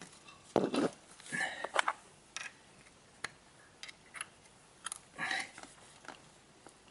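Short, irregular metal clicks and knocks from a motorcycle's rear shock and suspension linkage being worked by hand with a spanner, forcing the shock up into its mount.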